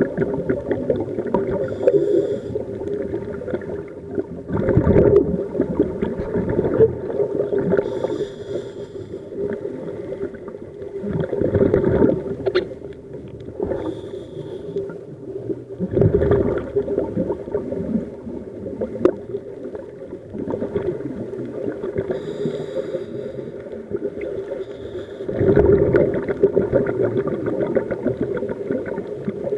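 Scuba diver breathing through a regulator underwater: a short hiss on each inhale, then a loud gurgling rush of exhaust bubbles on each exhale, four breaths about every five to six seconds. A steady low hum runs underneath.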